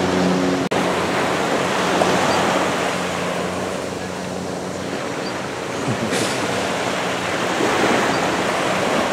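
Small waves washing in and breaking on a sandy beach, a steady surf wash. A low engine hum is strong for the first second and carries on faintly underneath.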